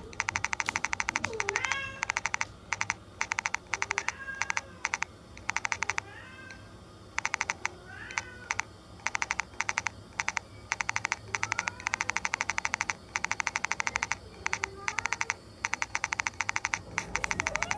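Rapid dry clicking in repeated runs of about a second, a skittering sound effect for cockroaches scurrying. Fainter cat meows come in here and there between the runs.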